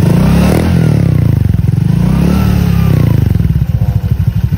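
Honda Click 125 scooter's single-cylinder four-stroke engine blipped twice from idle through a 4 Road aftermarket exhaust pipe with no silencer fitted, each rev rising and falling, then settling back to a pulsing idle.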